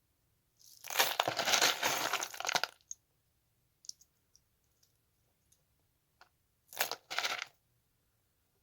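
Tactile switches being removed from electronic scrap, making crunching and crackling. A dense crunch lasts about two seconds, a few light clicks follow, and a shorter crunch comes near the end.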